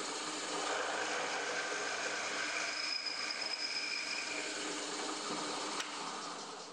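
Bench drill press running, its small twist bit drilling through a wooden workpiece: a steady motor and cutting noise that eases off near the end.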